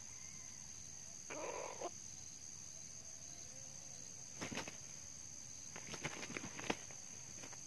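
Two junglefowl roosters fighting: clusters of sharp wing-flaps and scuffles about four and a half seconds in and again between six and seven seconds, after a short rough burst about a second and a half in. A steady high-pitched insect drone runs underneath.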